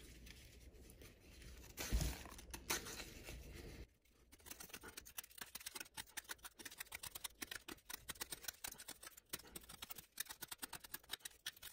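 Folding-knife blade shaving curls off a pine stick: a faint, fast run of short scraping cuts, several a second, starting about four seconds in. A single knock comes near two seconds.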